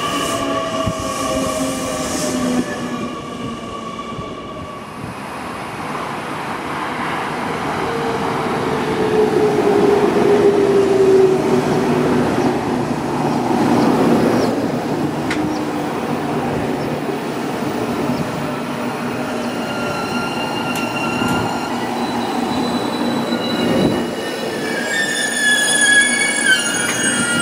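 JR Kyushu 813 series electric multiple units running past, with the rumble of wheels on rail and the whine of the traction motors. Around ten seconds in, the whine slides down in pitch. In the last seconds a train pulls away, its motor whine climbing in steps.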